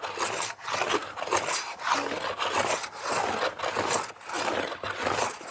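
Metal hand plane taking several long strokes along the edge of a board, each a rough shaving rasp with short gaps between. The cut comes and goes unevenly as the blade rides over the ridges left by the scrub and hogging planes.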